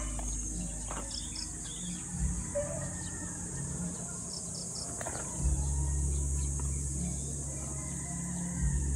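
Steady high-pitched insect chorus with a few short bird chirps, about a second in and again around four seconds. A low rumble joins about halfway through.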